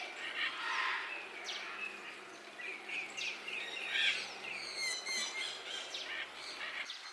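Small birds chirping and twittering, with short sliding notes throughout and a quick trill about five seconds in.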